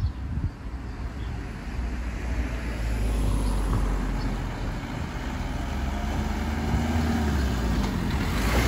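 Cars driving across a level crossing: engine and tyre noise growing louder as a Renault Kangoo van comes up close and passes.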